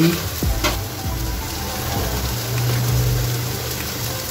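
Diced potatoes and onion sizzling steadily as they fry in oil in a kadhai, with a single light click about half a second in.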